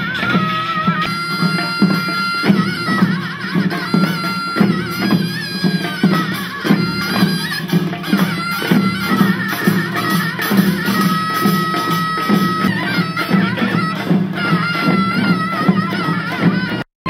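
Korean folk percussion band music: a taepyeongso (Korean shawm) plays a shrill, ornamented melody over a steady drum beat. The sound breaks off for a moment near the end.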